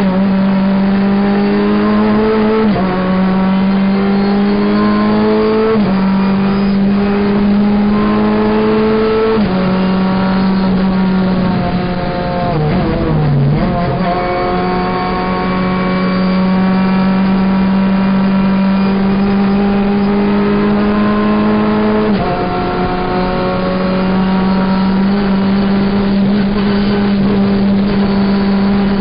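Renault Clio Cup race car's 2.0-litre four-cylinder engine heard from inside the cabin, running hard near the top of its revs, its pitch stepping at each gear change. About 13 seconds in the note dips briefly and then pulls again.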